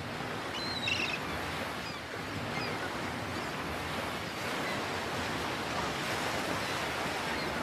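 Steady rushing ambient noise, with a few faint high chirps about a second in.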